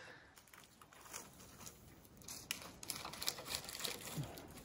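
Faint rustling and crackling, a few scattered ticks at first and busier in the second half.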